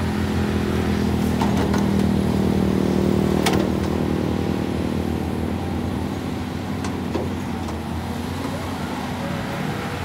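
Caterpillar 320D hydraulic excavator's diesel engine running steadily as the boom and bucket work, a little louder in the first few seconds, with a sharp clank about three and a half seconds in and a fainter one near seven seconds.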